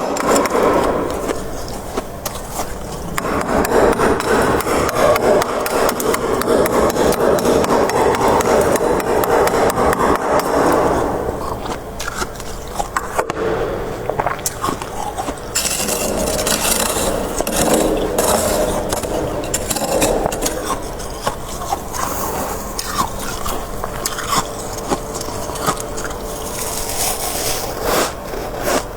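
Frost being scraped and chipped off the inside of a freezer: a long stretch of rough scraping, then lighter scratching and knocks.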